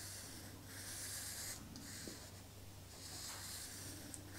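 Wooden graphite pencil drawing long strokes on paper: a faint scratchy hiss that comes and goes in a few strokes, over a low steady hum.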